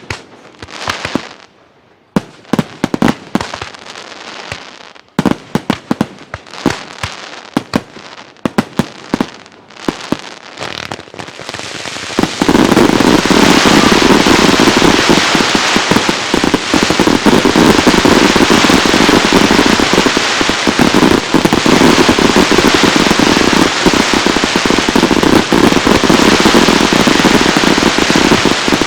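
Aerial fireworks bursting: separate sharp bangs with crackling between them, then about twelve seconds in a dense, continuous barrage of rapid reports that keeps going.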